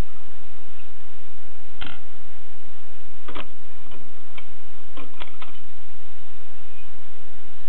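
Mignon index typewriter clicking as single characters are struck, in a slow, irregular sequence of sharp clicks with pauses of up to a second and a half between them.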